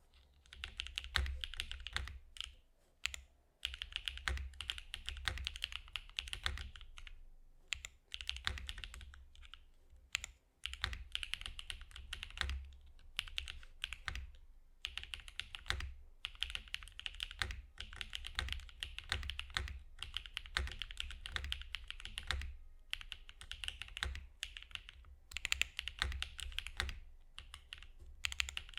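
Typing on a Cycle7 custom mechanical keyboard fitted with BSUN Hutt tactile switches: fast runs of key clacks, each with a low thock under it, broken by short pauses every few seconds.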